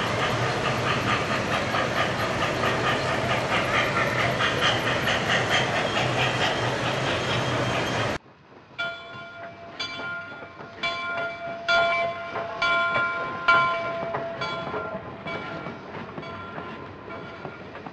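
Model train running on a layout: a steady clatter of wheels on the track over a low hum. About eight seconds in it cuts off sharply, and a quieter run of struck, ringing notes follows, roughly one a second.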